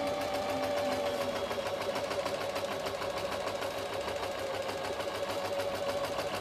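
Janome 523H sewing machine running steadily, stitching a narrow rolled hem through the hemmer foot. It gives an even motor hum with a fast, regular needle beat.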